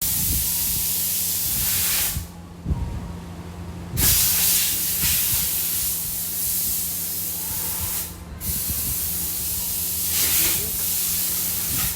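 Pressurised spray hissing in three long bursts of two to four seconds, each cut off sharply, over a steady low hum.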